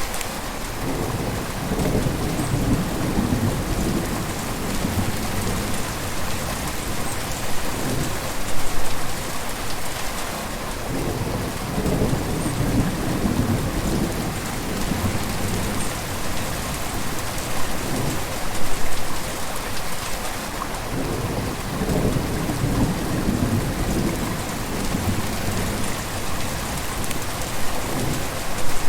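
River water flowing: a continuous rush with irregular deeper swells every second or two.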